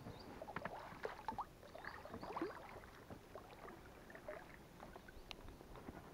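Water slapping and splashing against an inflatable PVC boat rocked by the wake of a passing motorboat, with irregular short knocks and brief squeaks from the boat's rubber hull.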